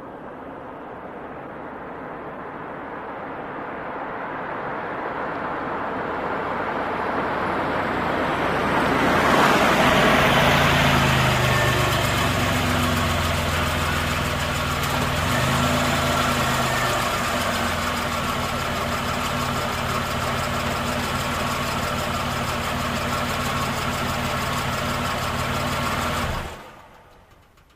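A car approaches, growing louder over several seconds, then stands with its engine idling steadily. Near the end the engine cuts off.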